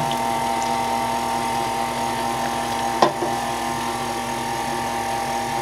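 Electric stand mixer running steadily, its flat beater mixing cake batter as the milk is worked in, with one brief knock about three seconds in.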